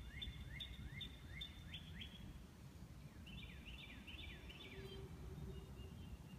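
A songbird singing in the background: two runs of quick, repeated downward-sweeping notes, the second starting about three seconds in, over a low steady rumble.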